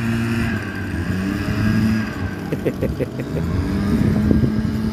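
An engine running steadily, its pitch wavering up and down a little.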